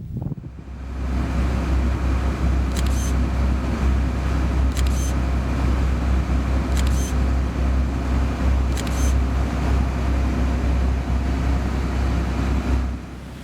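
Boat engine running steadily, a deep even rumble, with a short high hiss about every two seconds.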